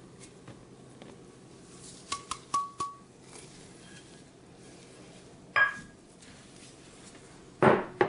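Kitchen utensils clinking and knocking while dry ingredients are measured into a wooden mixing bowl. There are three quick, ringing metallic clinks about two seconds in, then two louder knocks, one past the middle and one near the end.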